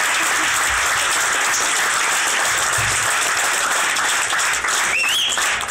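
Audience applauding steadily after a comedy routine's punchline, with a short rising whistle near the end.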